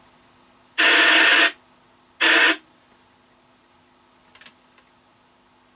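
Two short bursts of hiss from a Uniden Uniace 300 CB base station's speaker, a second apart, as the squelch opens and shuts on a weak signal near the edge of range; a faint click follows.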